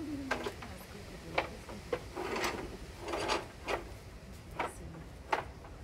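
Irregular light knocks and clicks with a couple of short rustling scrapes: sash cords and a mouse being fed over the pulley wheels of a sash and case window.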